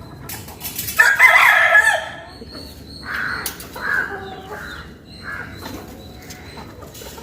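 Rooster crowing once, loud and long about a second in, followed by a few shorter, quieter calls.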